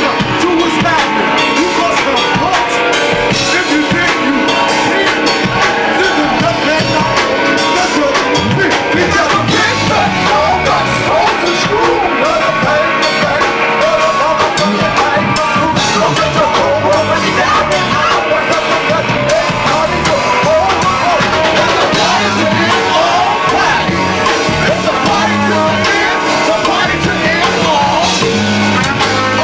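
Live funk band playing, a repeating bass line under sung vocals.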